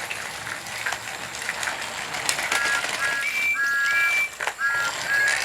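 Battery-powered toy Thomas and Percy trains running around their track, then, about two and a half seconds in, the set's electronic whistle sounding in a string of short, high beeping notes.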